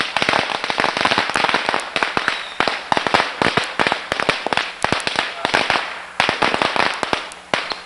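Firecrackers going off in a rapid, continuous run of sharp pops and cracks, thinning out near the end.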